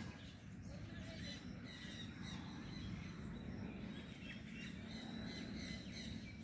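Birds chirping with short high calls, over a steady low rumble.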